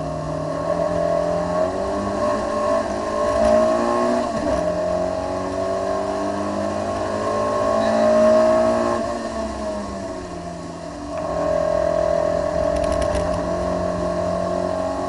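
Citroën AX GTI's four-cylinder engine under hard acceleration, heard from inside the cabin. The revs climb, drop sharply at a gear change about four seconds in, and climb again to their loudest just past eight seconds. They fall away for a couple of seconds as the car slows, then rise and hold high.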